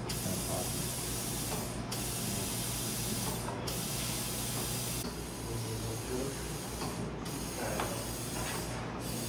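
Compressed air hissing steadily into a car tyre through an inflator chuck on the valve stem, briefly cutting out a few times. The tyre is being inflated to seat its bead on the rim, and the bead has not yet popped into place.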